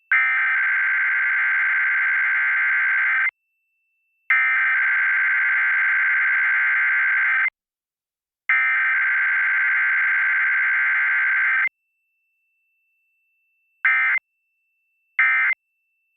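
Emergency Alert System SAME header for a Required Weekly Test: three identical bursts of shrill digital data tones, each about three seconds long, one second apart. About two seconds later come short end-of-message bursts, two of them here, with no attention tone in between, as is usual for a weekly test.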